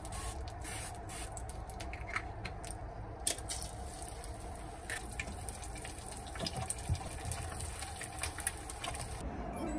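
An egg frying in oil in a non-stick pan: a steady sizzle with scattered crackles and pops. A spatula works under the egg near the end.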